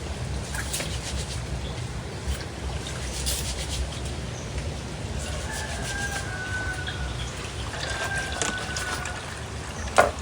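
Water trickling steadily, with scattered light clicks and knocks.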